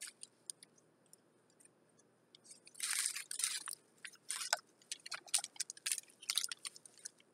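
Clear plastic bag crinkling as it is handled and squeezed: a few light crackles at first, then a run of louder crinkling from about three seconds in.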